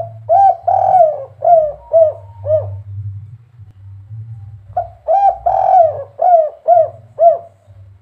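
Spotted dove (derkuku) cooing two phrases, the second starting about five seconds in. Each phrase is a couple of short coos, one longer drawn-out coo, then three short closing 'kuk' notes: the 'kuk 3' call that dove keepers prize.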